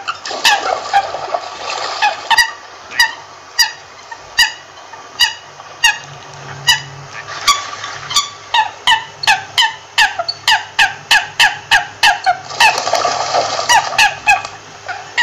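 American coot giving a long series of short, clipped calls, nearly two a second at first and quickening to about three a second in the second half. A few brief stretches of rougher noise sit behind the calls.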